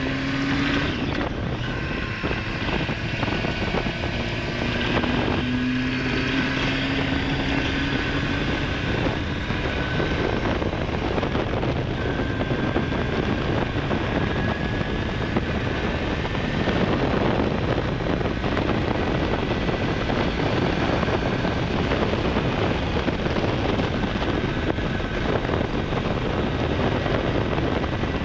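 Honda Hornet 900's inline-four engine running under way, its pitch rising twice in the first seven seconds as it accelerates. Wind rush on the microphone builds and covers most of the engine from about ten seconds in.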